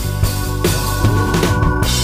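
Rock music with a drum kit beating under sustained guitar tones.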